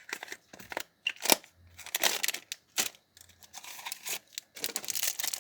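Small candy-box packaging being torn open and handled, with irregular crackling, tearing and crinkling in short clusters.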